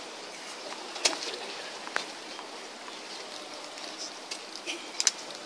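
Low murmur of a hushed tennis-arena crowd, broken by sharp knocks of a tennis ball on the hard court and racket: single knocks about one and two seconds in, and a quick double knock near the end.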